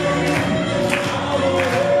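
A song playing: a high sung melody holding long notes over a backing track with a steady beat.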